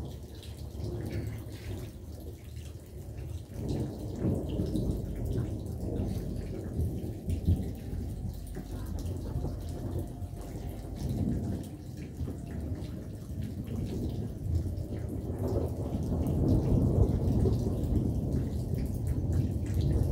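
Thunder rumbling over steady rain, swelling louder about four seconds in and again near the end, with raindrops ticking throughout.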